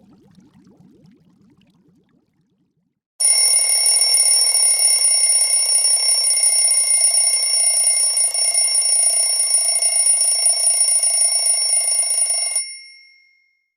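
Blu Studio 5.5 C phone ringtone imitating an old-style telephone bell: a loud, continuous bell ring that starts abruptly about three seconds in. It goes on for about nine seconds, then cuts off, leaving the bell tones to die away briefly.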